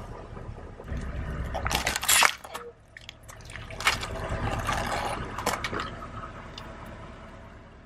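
Car tyre rolling over a water-filled squishy ball wrapped in plastic: crinkling plastic and squishing, spilling water, with sharp crackles about two seconds in and again near four seconds, over the low rumble of the slowly moving car.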